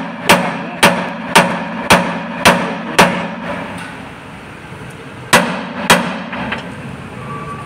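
Hammer blows on steel at a truck propeller shaft's universal joint, knocking the joint out: six evenly spaced strikes about two a second, a pause, then two more.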